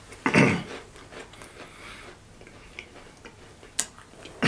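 Dry saltine crackers being chewed: soft, scattered crunches and small clicks, with a short louder sound just after the start and a sharp click near the end.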